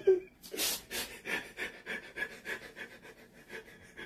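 A person breathing hard in quick, audible puffs, about four a second, tailing off near the end.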